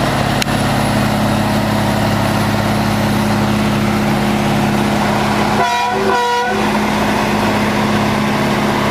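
Heavy-haul truck's diesel engine running steadily under load, with two short horn blasts about five and a half seconds in.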